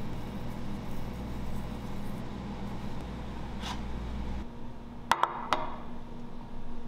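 Two sharp clinks about half a second apart, with a brief ring, as a ceramic plate is set down on a table. Before them, a steady background hum.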